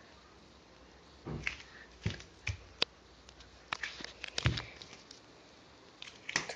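Plastic Lego pieces clicking and knocking as a Lego airplane model is handled: irregular sharp clicks and a few duller knocks, the loudest about four and a half seconds in.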